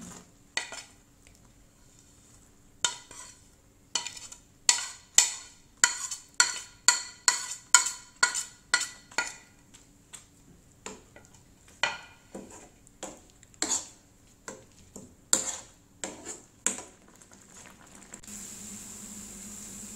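A spoon stirring grated coconut into melted jaggery in a nonstick frying pan, a series of short scrapes and clinks against the pan, about two a second at their busiest, then sparser. Near the end a steady sizzling hiss as the jaggery-coconut mixture bubbles on the heat.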